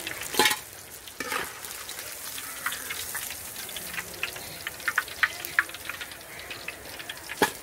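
Masala-marinated fish steaks deep-frying in hot oil in an iron kadai: a steady sizzle full of crackling pops. A few sharp metal knocks come from a perforated steel ladle in the pan as the fried pieces are lifted out, one about half a second in, one about a second and a half in, and one near the end.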